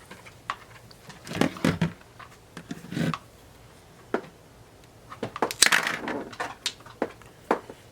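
Handling noises from the trolling motor power cord and its plug parts: scattered clicks and knocks, with a crinkling rustle about five to six seconds in.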